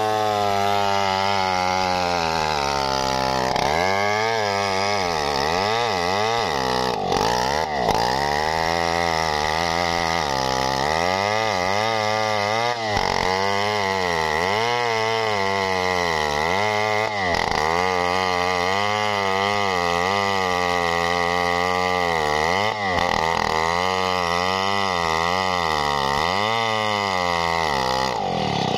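Two-stroke Stihl chainsaw at full throttle ripping a coconut log lengthwise. The engine pitch sags and recovers again and again as the chain loads up in the long cut.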